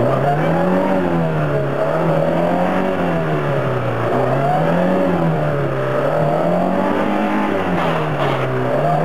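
Lada Niva's engine revving up and down over and over, about once every second and a half, as the car works to pull itself through deep mud.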